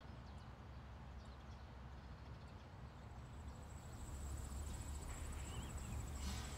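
Faint open-country evening ambience: a steady low rumble with a few thin bird chirps, and from about halfway a steady, high, pulsing insect trill like crickets, joined by a short wavering bird call.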